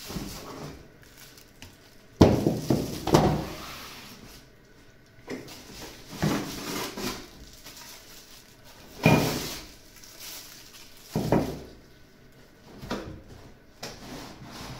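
Unpacking noises: irregular knocks, rustles and thumps of cardboard box flaps and plastic-wrapped vacuum cleaner parts being handled, including metal extension tubes set down on a table.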